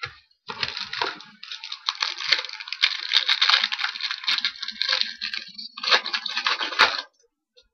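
Crinkling and tearing of a trading-card pack wrapper as a pack is torn open. It is a dense crackle that starts about half a second in, eases briefly near the five-second mark, and stops about seven seconds in.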